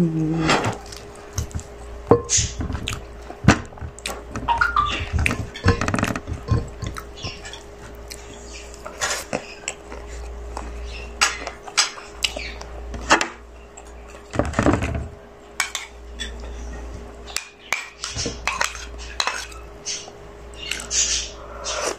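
Close-up eating sounds: chewing of chicken and rice, with irregular clicks and clinks of plates being handled. A faint steady hum runs underneath.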